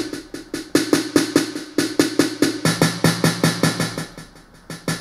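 Maschine's 808 drum kit playing a steady looping pattern of quick, even electronic drum hits over a low bass tone. Its volume falls away about three and a half seconds in and comes back up near the end as the kit's level is swept from the MIDI controller.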